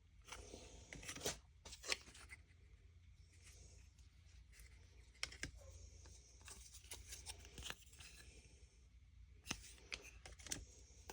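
Faint rustling and crinkling of plastic packaging being handled, with scattered light clicks and ticks as small wooden magnet pieces are sorted.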